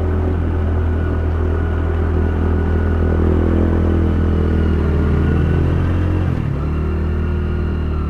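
Motorcycle engine running steadily as the bike is ridden through flood water, its note shifting about six seconds in.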